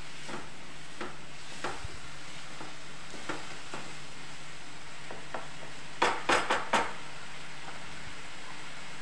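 Spatula stirring and scraping a spiced masala frying in a non-stick kadai, over a steady sizzle. About six seconds in come four quick sharp knocks of the spatula against the pan.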